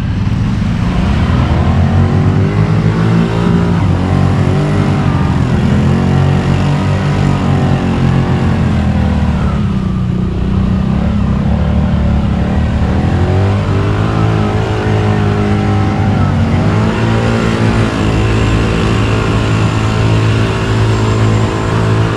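Kawasaki Brute Force 750 ATV's V-twin engine revving as the quad drives through pond water, its pitch rising and falling several times. The revs hold high near the end as it spins donuts in the water.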